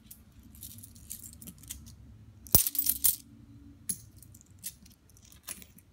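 Handfuls of loose Philippine coins clinking against one another as they are dropped and spread into a pile on a cloth. There are scattered light clinks, with a loud cluster about two and a half seconds in.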